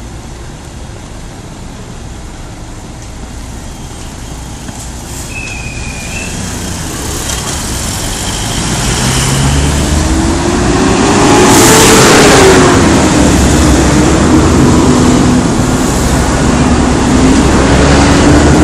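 City street traffic with a diesel city bus pulling in close alongside; its engine grows steadily louder and peaks with a burst of hiss about two-thirds of the way through, then keeps running as its pitch rises and falls. A brief high squeak sounds about a third of the way in.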